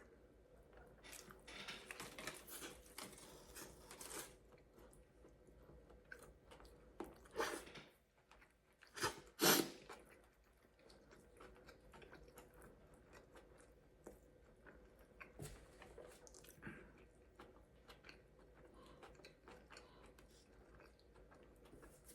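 A person chewing and biting into food, close to the microphone, with soft crunching. There are a few louder short bursts about seven and nine seconds in.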